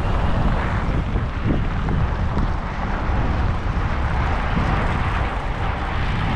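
Steady wind rumble on the microphone mixed with street traffic noise.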